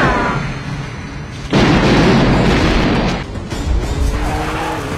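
Action-film explosion: a sharp bang at the start, then a big blast about a second and a half in that lasts over a second, with score music under it. Near the end an engine revs up with a rising pitch.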